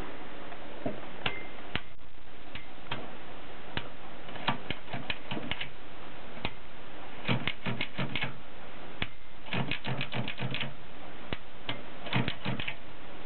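Mercedes K45 typewriter being typed on: single key strikes spaced apart at first, then quick runs of several keystrokes with pauses between them.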